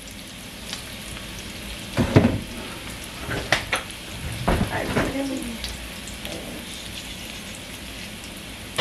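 Onion strips sautéing in a hot frying pan, a steady sizzle. A few knocks and clatters come between about two and five seconds in.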